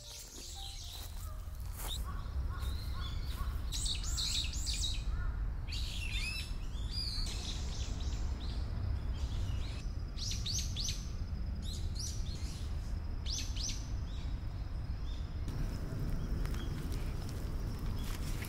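Small birds chirping in several short clusters of quick high notes, over a steady low outdoor rumble. A thin, high, steady tone runs through the second half.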